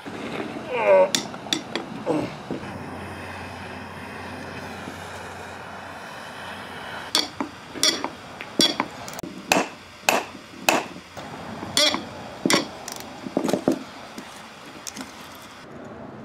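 Three-jaw gear puller on a BMW 2002 steering box, worked with a long breaker bar to pull the arm off its shaft. About a second in there is a short creak under load with a few clicks. In the second half comes a run of about a dozen sharp metal knocks and clicks, roughly two a second.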